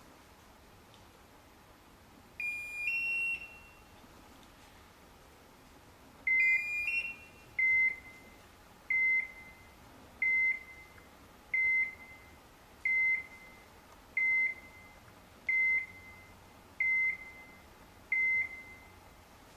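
Hunting dog's beeper collar sounding: two short two-tone warbles, then a single electronic beep about every 1.3 seconds, nine in a row. The steady repeating beep is the collar's point signal, telling the hunter the dog has stopped and is holding point on a woodcock.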